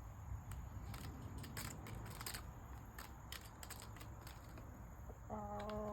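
Faint scattered clicks and scratches of chickens pecking and moving about the coop, with a short steady-pitched sound near the end.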